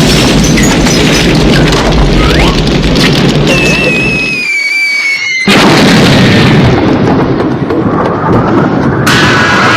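Film sound effects of a firework rocket's thrust: a loud, continuous rushing roar with a deep rumble, with cartoon whistles gliding downward over it. About halfway through, the rumble drops out for a second under a long falling whistle, then the roar comes back with a sudden blast.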